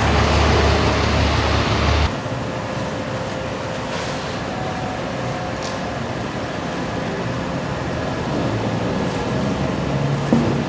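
Road traffic noise from vehicles passing along a busy road. A heavy low rumble in the first two seconds cuts off abruptly, leaving a steadier background hum.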